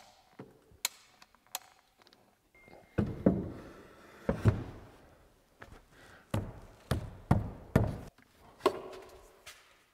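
Heavy timber stair tread being handled and set onto notched wooden stair stringers: a series of separate dull wooden thunks and knocks, with a couple of sharp clicks about a second in.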